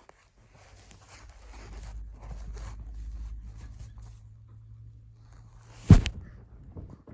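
Soft rustling over a low rumble, with one sharp knock about six seconds in.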